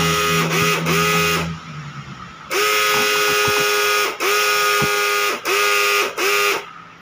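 Portable pulse-jet thermal fogging machine firing as a high buzzing whine that keeps catching and cutting out, about seven bursts, each rising in pitch as it catches and sagging as it dies, while flame spits from the barrel. The workers take the sputtering and the fire as a sign that the machine is broken.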